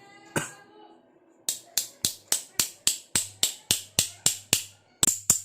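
Rapid light hammer taps, metal on metal, about four a second with a brief pause near the end: a new ball bearing being tapped into place in an electric drill's new iron cam holder.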